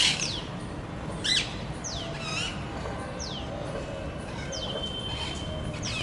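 Short, sharp chirping calls, each falling steeply in pitch, coming five or six times at uneven intervals; the first, right at the start, is the loudest.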